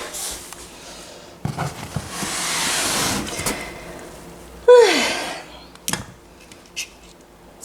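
Storage boxes and supplies being handled: a knock about a second and a half in, a rustling shuffle of items, a short falling tone near five seconds, then a couple of sharp clicks.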